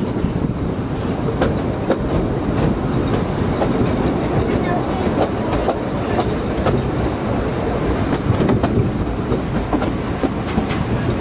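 Narrow-gauge passenger train running along the track: a steady rumble with the clickety-clack of the wheels and many small rattling clicks from the carriage.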